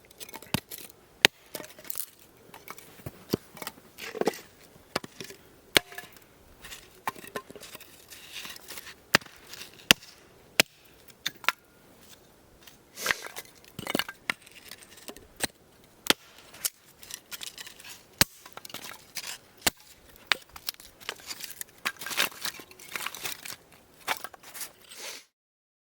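Irregular sharp clicks and knocks mixed with bursts of crunching and rustling, like hands handling gear or food; the sound stops abruptly near the end.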